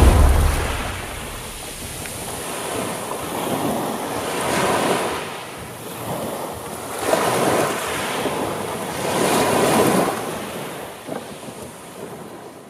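Sea surf, waves washing onto the shore in swells every two seconds or so, then fading out near the end.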